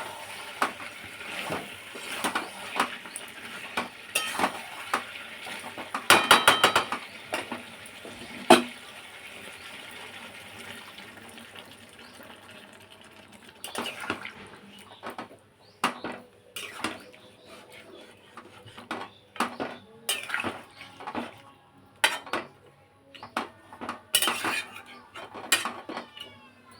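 Metal spoon clinking and scraping in a pan of meat curry as a little water is added, with a steady hiss through the first half. After that come scattered separate knocks and clinks of utensils against pots.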